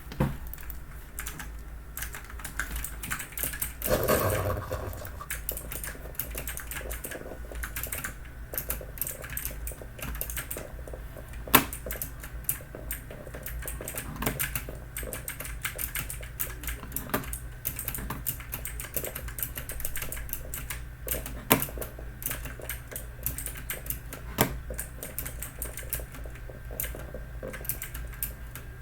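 Fast, uneven typing on a Logitech mechanical keyboard with clicky blue-style switches: a dense stream of sharp key clicks, with a few heavier single strokes standing out.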